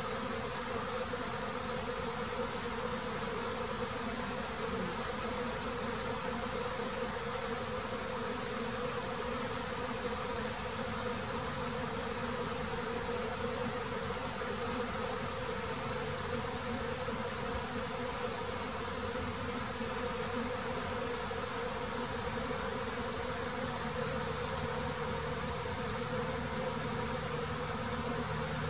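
Honeybees buzzing in a steady, unbroken drone, with a continuous high-pitched insect hiss above it.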